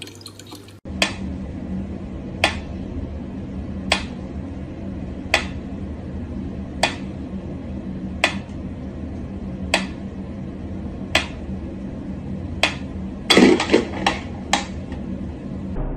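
Mechanical pyramid metronome ticking slowly, one sharp click about every second and a half over a steady low hum. Near the end comes a quick flurry of louder knocks.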